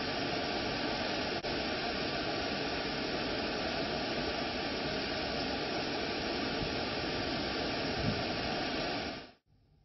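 Steady rushing of water at the rain-swollen Gira Falls, with muddy monsoon flow pouring over a rock ledge into a pool. The sound dips briefly about one and a half seconds in and fades out just before the end.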